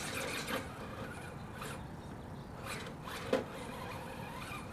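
Scale RC rock crawler's 1.9-inch JConcepts Scorpio tires scrabbling on rock as it climbs, a series of short, gritty scrapes, as the rear tire hops and drops.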